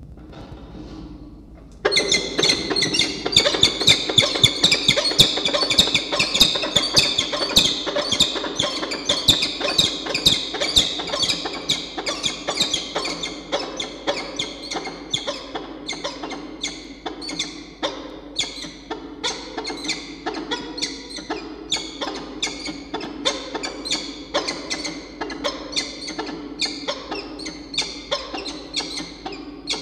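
A pair of peregrine falcons calling in a pair-bonding display: a fast run of short repeated calls starts about two seconds in and goes on, a little softer in the second half.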